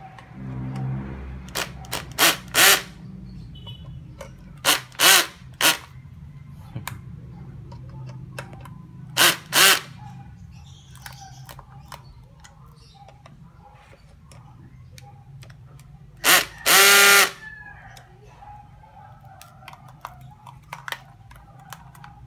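Cordless Makita drill run in short bursts, drilling mounting holes into a wall. The bursts come in several small groups, with a longer burst about 17 seconds in.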